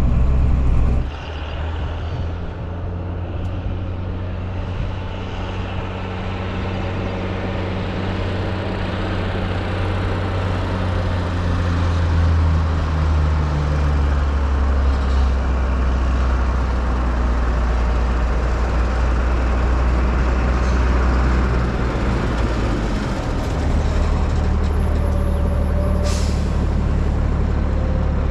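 Fendt Favorit 818 tractor engine running steadily as the tractor drives off with the emptied loader wagon, its note dropping about a second in, then slowly rising and falling with the throttle. A brief sharp noise sounds near the end.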